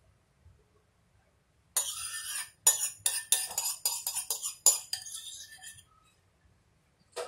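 Metal spoon scraping and clinking against a bowl in a quick run of scrapes and taps, starting about two seconds in and lasting about four seconds, as the last of a coffee-coloured agar jelly mixture is scraped out.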